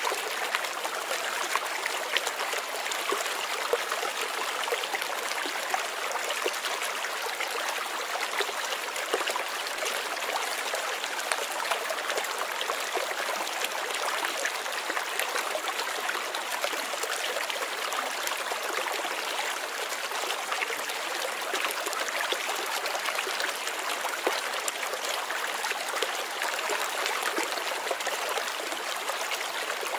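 Flowing water babbling steadily, a continuous bright wash of small splashes and trickles with little low rumble.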